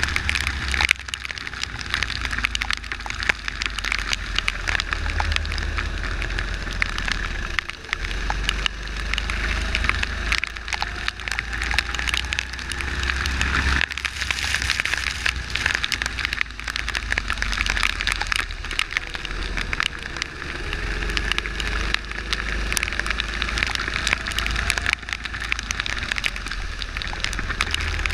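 Onboard sound of a kart driving on a wet track in the rain: water spray and raindrops crackling against the microphone, wind rumbling on it, and the kart's engine faintly beneath, its pitch rising and falling with speed.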